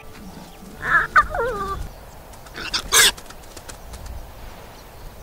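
Animal calls: a pitched call that falls in pitch about a second in, then a short, loud harsh burst about three seconds in.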